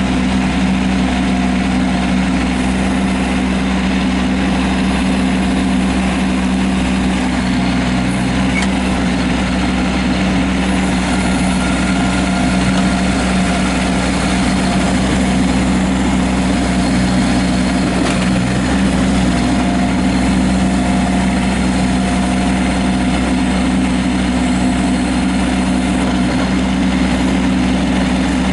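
Kubota B2301 compact tractor's three-cylinder diesel engine running at a steady speed, with an even drone and no revving.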